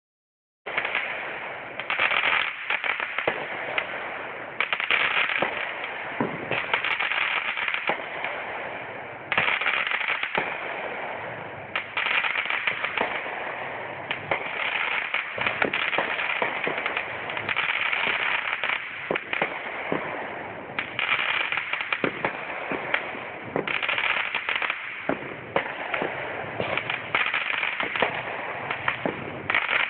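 Fireworks going off in quick succession: sharp bangs over a dense crackling hiss that swells in waves every few seconds. The sound is thin and cut off at the top, as a phone's microphone records it.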